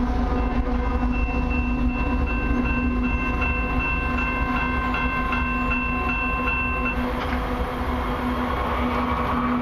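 Railway crossing warning bell ringing in quick repeated strokes, stopping about seven seconds in, over a steady low rumble.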